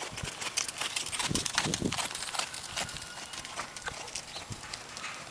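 Hoofbeats of a ridden horse passing close by on sand arena footing: a quick run of soft thuds.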